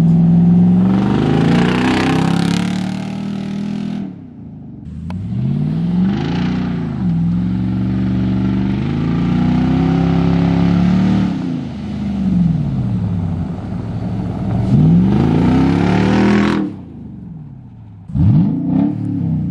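Loud exhaust of a 2015 Nissan Titan Pro-4X's 5.6-litre V8, running through a new cat-back exhaust with a smaller muffler, as the truck accelerates hard past the camera. The engine note climbs and drops again several times, and it breaks off abruptly twice between runs.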